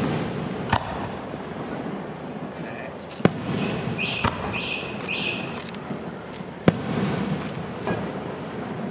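Aerial firework shells bursting overhead: about five sharp bangs a second or so apart, with a rumbling echo between them.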